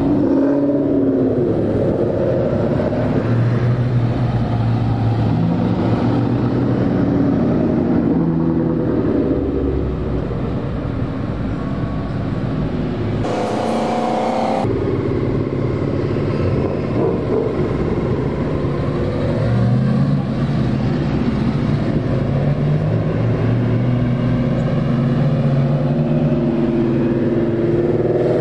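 Ford Mustangs cruising past one after another, their engines running and rising and falling in pitch as each car passes and accelerates.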